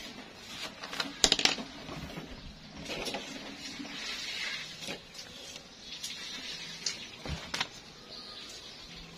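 Handling noise from a notebook and pencil on a table: a quick cluster of sharp clicks and taps about a second in, paper rustling a couple of seconds later, then a few single light taps.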